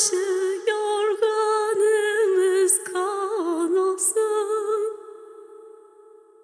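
A solo voice singing a Turkish folk lament (türkü), an ornamented line with wavering, melismatic turns and no clear accompaniment. A last note is held and fades out near the end.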